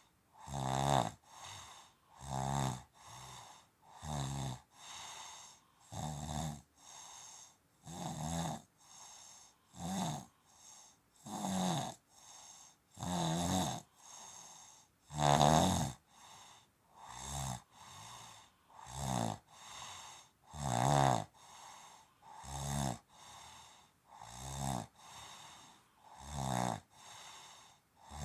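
Steady rhythmic snoring: a loud rasping snore followed by a softer one, one pair about every two seconds.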